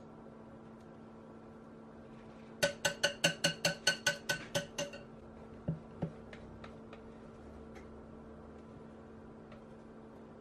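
A wire whisk tapped about ten times in quick succession against the rim of a glass mixing bowl, each tap ringing briefly, knocking thick cake batter off the wires. About a second later come two soft, low knocks as the bowl is handled.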